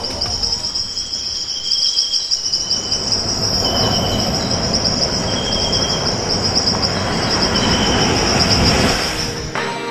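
Insect chorus: a steady, pulsing high trill with shorter, lower chirps every second or so. Under it, the wash of breaking surf swells from about three seconds in and stops just before the end.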